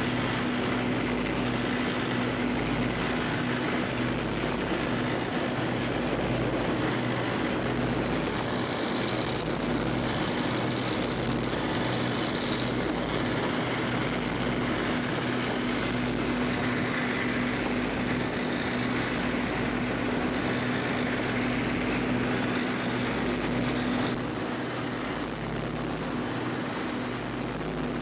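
Boat engine running at a steady drone over the rush of its wake and wind, a little quieter near the end.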